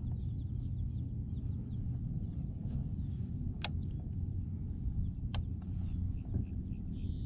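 Steady low rumble with faint bird chirps over it, and two sharp clicks about a second and a half apart midway through.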